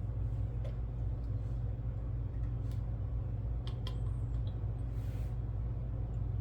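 Steady low hum of room background, with a few faint light clicks from small plastic model parts being handled and a brief soft hiss about five seconds in.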